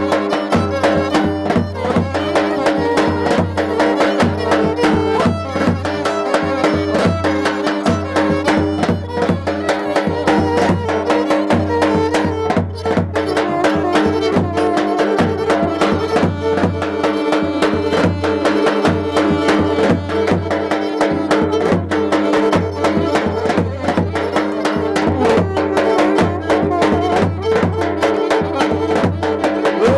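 Romani folk band music: violin and saxophone playing over a steady beat.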